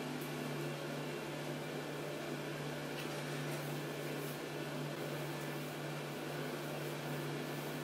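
Steady low machine hum with a soft hiss, and faint rubbing of a cloth on a wire fan grille now and then.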